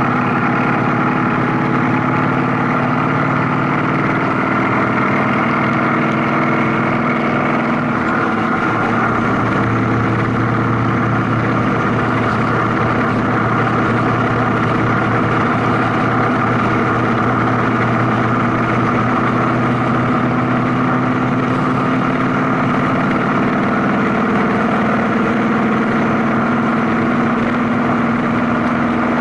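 Vehicle engine and road noise at steady highway speed: a constant drone with a steady engine hum, whose pitch steps up a little about nine seconds in.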